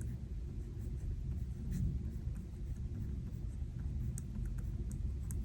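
Faint handling of paper stickers on a planner page, a few light ticks and rustles, over a steady low rumble of thunderstorm ambience.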